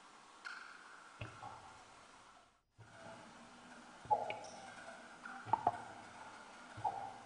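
Sparse sound-collage soundtrack: a faint hiss with a handful of soft knocks and clicks, each a short low thud with a brief ringing tone, two of them close together near the end. The hiss drops out for a moment about two and a half seconds in.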